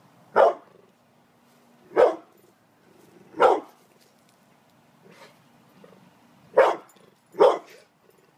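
Pit bull barking at a gate: five loud, deep single barks about a second and a half apart, with a gap holding a couple of fainter ones in the middle.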